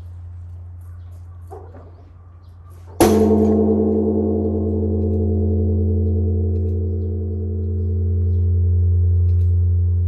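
Large Japanese bronze temple bell (bonsho), rung as the morning bell, struck once about three seconds in by a hanging wooden beam. A sharp boom gives way to a long, deep hum that slowly wavers in loudness. Before the strike, the hum of the previous stroke is still sounding.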